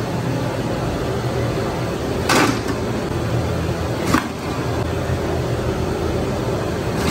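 Steady mechanical hum and rushing noise, with two short knocks or clatters about two and four seconds in.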